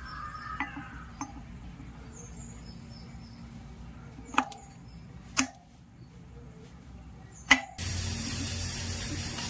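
Sharp metallic clinks of hand tools and bolts against a motorcycle's alloy wheel hub as a brake disc plate is bolted on, about five in all, the loudest near the end. A steady hiss comes in near the end.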